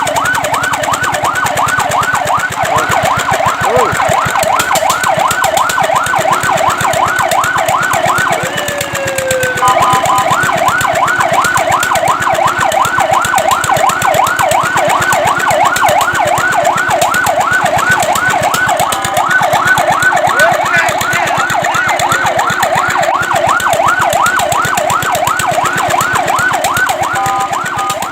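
Fire truck siren sounding a fast yelp, its pitch sweeping up and down several times a second. About nine seconds in it drops in one slow falling sweep and gives a short steady two-note tone, then goes back to the yelp.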